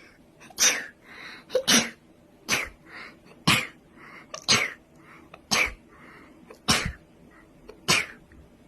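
A woman sneezing over and over in a rapid series, about eight sneezes roughly a second apart, with short breaths drawn in between them.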